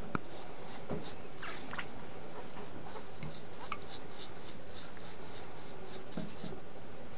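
Toothbrush scrubbing a hedgehog's quills in shallow sink water: a run of quick scratchy brushing strokes, about three a second.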